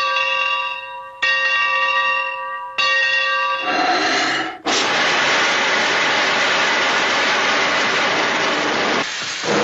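A large bell ringing out, struck twice more about a second and a half apart, then cut off about four and a half seconds in by a loud, steady hiss of escaping steam. These are cartoon sound effects.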